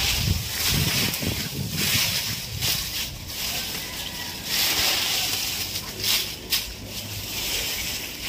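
Dry leaves pouring and rustling as they are shaken out of a woven plastic sack into a plastic bin, coming in several surges, with a few sharper crackles about six seconds in.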